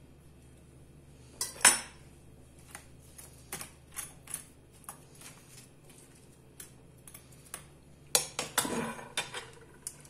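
Kitchen dishes and utensils clinking and knocking: two sharp knocks just under two seconds in, scattered lighter clicks through the middle, and a denser clatter with some ringing near the end.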